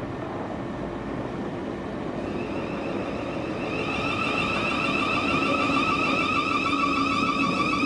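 Thameslink Class 700 electric multiple unit pulling into the platform and slowing, with a steady rumble of wheels on rail. About two seconds in, a high whine of several stacked tones comes in and grows louder as the train approaches.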